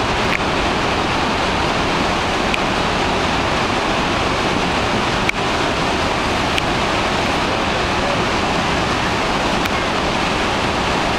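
Horseshoe Falls at Niagara, a steady, loud roar of water pouring over the crest. A single brief click about five seconds in.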